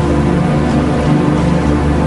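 Background music: a steady, loud score with held tones over a deep bass.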